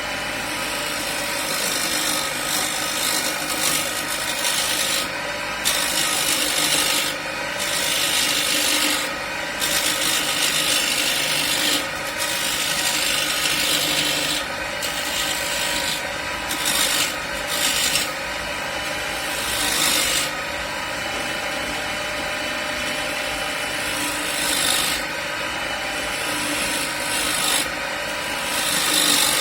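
Homemade wood lathe running with a steady motor hum while a hand-held chisel cuts into a spinning oak blank, the scraping cut coming and going in repeated passes of a second or two.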